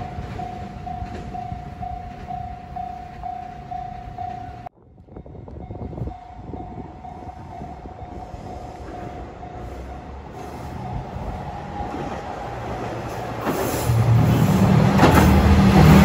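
Level crossing warning bell ringing in an even, pulsing tone. From about two-thirds through, a KiHa 120 single-car diesel railcar's engine grows loud as it approaches, with wheel clatter near the end.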